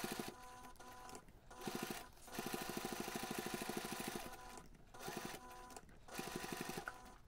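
Domestic sewing machine basting around the edge of the fabric layers, running in short bursts of rapid, even stitching that stop and start several times as the fabric is turned around a curved edge.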